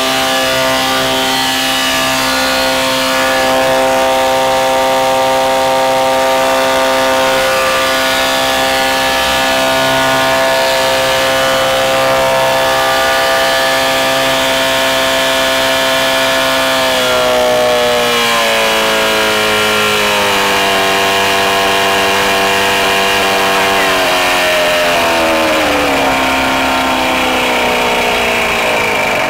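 Mercury outboard engine running at steady high revs under load on a dynamometer. After about 17 seconds the engine speed falls in several steps.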